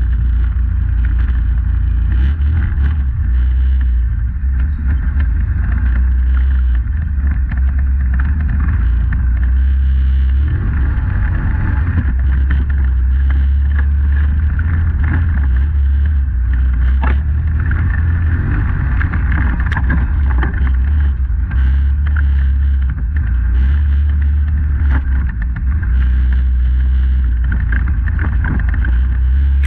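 Polaris Sportsman 850 ATV engine running steadily under way, a constant low drone, with some wind noise on the microphone.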